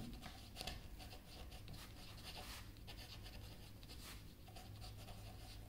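Pen writing on paper: faint, irregular scratchy strokes as words are written out by hand.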